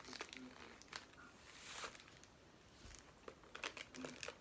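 Faint rustling and crinkling of paper being handled, with a few light clicks and one longer rustle about halfway through.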